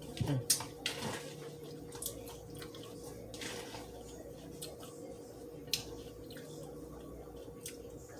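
Eating sounds: short wet clicks and smacks from a mouth chewing food, with a longer noisy rustle about three and a half seconds in. A faint steady hum runs underneath.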